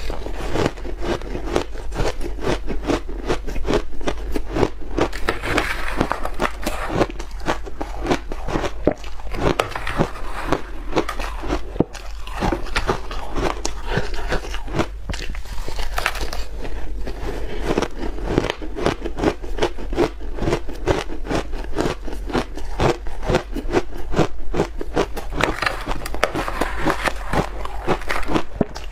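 Ice being bitten and chewed close to the microphone: a dense, continuous run of crisp crunches and crackles, several a second.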